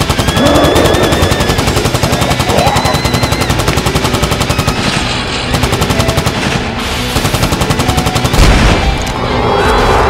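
Rapid automatic gunfire sound effects, shot after shot in a fast steady rhythm, breaking off briefly twice. A heavy boom comes a little after eight seconds, with music underneath.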